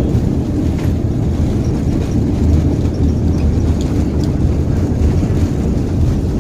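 Steady low rumble of a passenger jet's cabin noise, the engines and airflow heard from inside the cabin.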